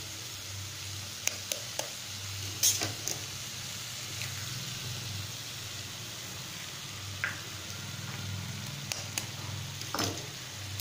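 Cauliflower mixture frying in a pan with a steady sizzle, broken by a few sharp taps and clicks as eggs are cracked and dropped in, a cluster in the first three seconds, the loudest about two and a half seconds in, and a few more near the end.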